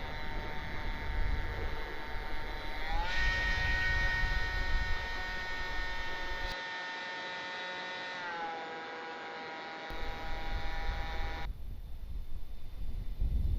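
Radio-controlled model plane's electric motor whining steadily in flight. Its pitch steps up about three seconds in as the throttle opens, drops back about five seconds later, and cuts off near the end as the throttle is closed. A low rumble of wind on the microphone runs underneath.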